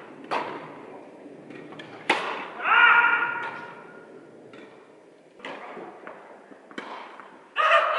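Tennis balls struck with rackets: two sharp hits about two seconds apart, echoing in a large indoor tennis hall. Right after the second hit comes the loudest sound, a short pitched squeal, and a few lighter knocks follow later.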